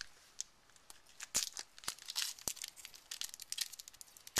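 A foil trading-card booster pack wrapper being torn open and crinkled in the hands: irregular crackles and rustles, sparse for the first second and busier after.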